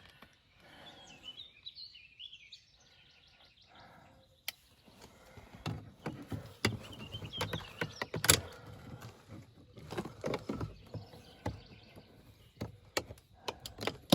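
Faint birds chirping, then a run of sharp clicks and knocks as the door handle and its latch cable are worked on by hand, the loudest about eight seconds in.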